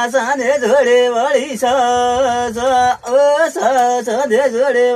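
A voice singing a folk melody in long held phrases with wavering, ornamented turns of pitch, pausing briefly about a second and a half in and again around three seconds.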